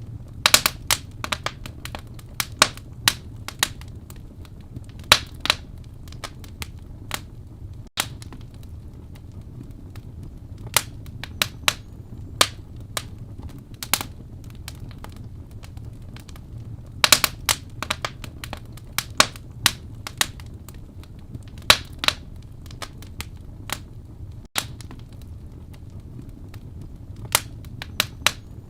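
Wood fire burning in a fireplace: sharp crackles and pops at irregular intervals, sometimes several in quick succession, over a low steady rumble of the flames.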